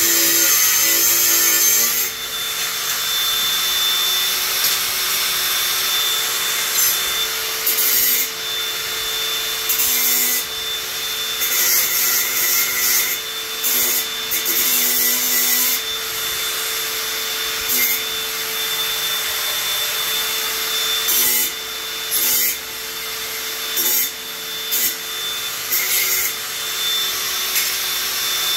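A power tool running steadily throughout, with harsh rasping bursts that come and go every second or two as it works the material. The first couple of seconds hold a louder, different whirr.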